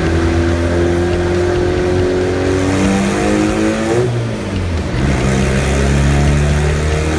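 Turbocharged 1.8-litre 20-valve four-cylinder of an Audi A4 B5 quattro under load on a chassis dyno, its pitch climbing steadily. About four seconds in the revs dip briefly, then climb again.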